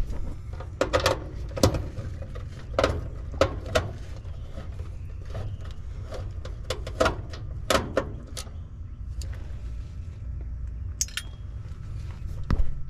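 Irregular sharp clicks and clinks of small metal parts, screws and wire terminals being handled by hand while the contactor is being changed in an air-conditioner condenser's control panel, over a steady low rumble.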